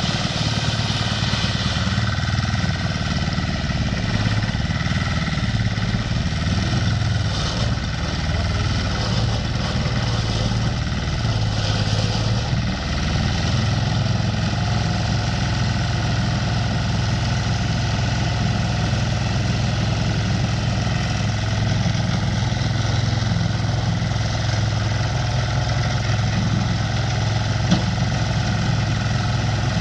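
Small diesel engine of a power lawn mower running steadily, with an even low hum.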